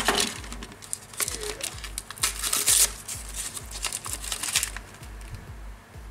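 Paper wrapping being crinkled and torn open by hand, in irregular rustling bursts that are loudest about two and a half seconds in and again around four seconds.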